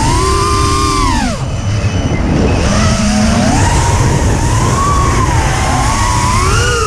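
Motors of a 3-inch FPV racing quadcopter whining, the pitch sweeping up and down with the throttle and dropping sharply about a second and a half in before climbing again. Wind rumbles heavily on the microphone.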